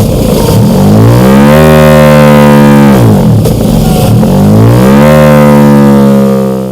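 KTM 1290 Super Duke R's V-twin revving through a Mivv Delta Race slip-on exhaust: twice the revs climb from near idle to a high note held for a second or two, falling back between them about three seconds in.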